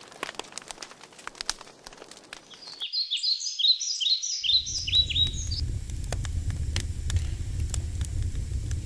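Campfire crackling and popping, then a songbird's quick run of repeated high chirps, followed by a steady low rumble.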